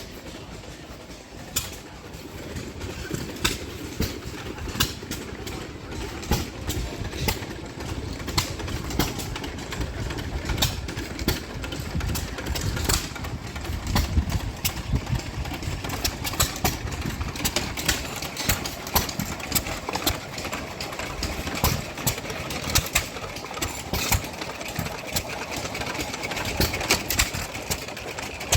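Antique gas engines running: a low rumble with many sharp clicks and knocks at irregular intervals.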